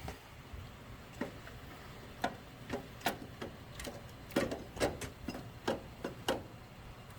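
Irregular clicks and knocks, about ten of them at uneven intervals, the loudest a little past the middle, as the alternator of a 2013 Infiniti QX56 is wiggled around and worked loose from its mounting.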